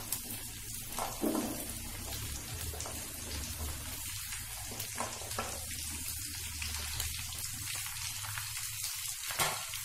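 Hot mustard oil sizzling in a kadai as chopped vegetables are tipped in from a plate: a steady hiss with a few soft knocks of pieces dropping into the pan.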